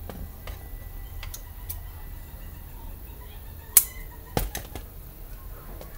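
Handling noises from cardboard craft work: scattered light clicks and taps as a cardboard propeller and tape are handled on a cutting mat. The loudest is a sharp click just under four seconds in, followed about half a second later by a duller thud.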